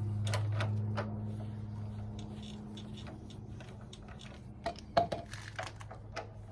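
Scattered light metallic clicks and clinks of tools and bolts being handled on a motorcycle's front brake caliper, with one sharper clack about five seconds in. A steady low hum runs underneath and slowly fades.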